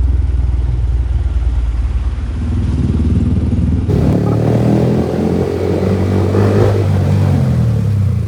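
Motorcycle with a loud aftermarket exhaust running and revving, its pitch rising and falling, with an abrupt cut in the sound a little under four seconds in.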